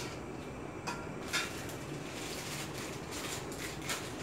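Steady hiss of a portable gas stove burner under a wok of cooking noodles, with a couple of sharp clicks about a second in and lighter ticks and rustles of utensils and packaging in the second half.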